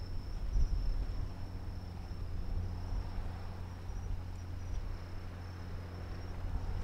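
Crickets chirping in a steady high trill, over a low, uneven rumble.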